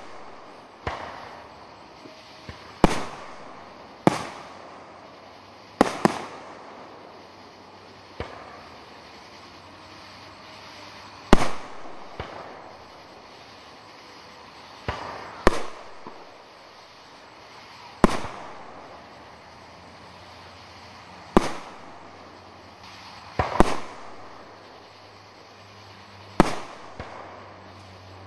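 Aerial firework shells bursting one after another, about fifteen sharp bangs spaced irregularly one to three seconds apart, each trailing off in an echo. A few come as close pairs.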